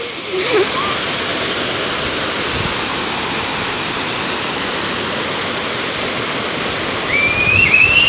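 Steady rush of a small waterfall pouring over a rock ledge into a shallow pool. Near the end a high-pitched call rises over the rushing water.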